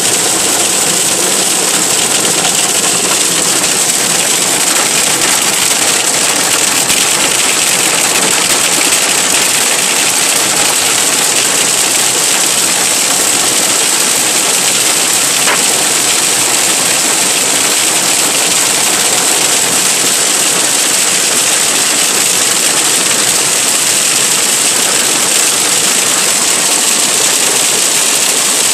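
Hail and heavy rain beating on a car's roof and windscreen, heard from inside the cabin as a loud, steady rush of impacts.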